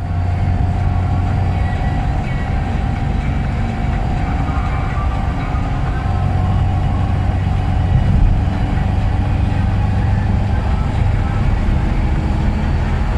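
Moskvich 412 driving at steady speed, heard from inside the cabin: a constant low drone of the inline-four engine and tyres, with a thin steady hum running over it.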